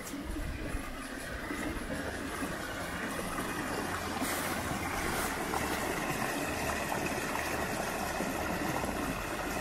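Woodland brook rushing and splashing over a small stony cascade, a steady rush of water that grows louder about four seconds in.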